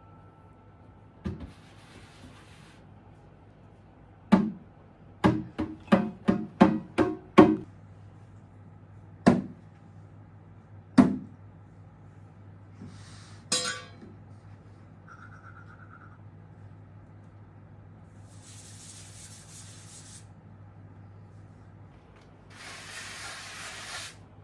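A series of knocks on something hard: one, then a quick run of about eight, a third of a second apart, then two single knocks, with short spells of hissing later.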